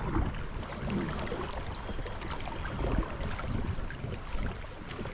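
River water splashing and lapping around an inflatable raft, with irregular splashes and wind rumbling on the microphone.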